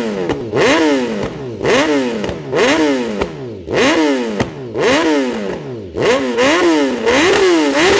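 BMW S1000R's inline-four, fitted with an Akrapovic exhaust, revved in short throttle blips while standing: each rev climbs sharply and falls straight back, about once a second, then quicker, about twice a second, near the end.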